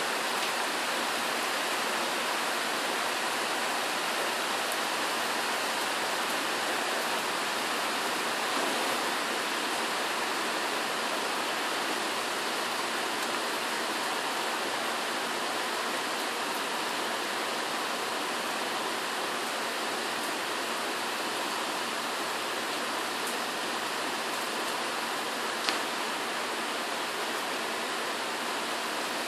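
Rain falling steadily in a tropical storm, an even, unbroken hiss. A single short click sounds near the end.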